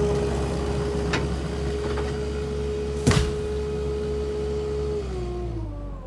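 Water oak trunk falling and hitting the ground with one heavy thud about three seconds in, over an engine running steadily whose pitch drops near the end.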